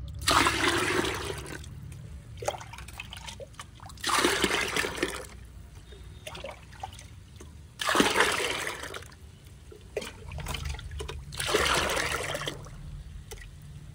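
Water poured into a plastic bucket of fermented rice-starch and mustard-cake liquid fertilizer, splashing and foaming the liquid. It comes in four pours of about a second each. This is the concentrate being diluted with two parts water.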